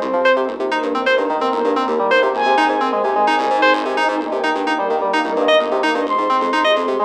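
A Samsung Galaxy phone ringtone playing: a synthesized keyboard melody of quick notes over held tones.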